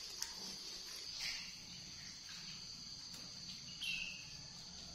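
Water in a metal bath basin moved by hands washing a baby monkey, with a soft splash about a second in and a short high squeak about four seconds in, over a faint steady high-pitched trilling.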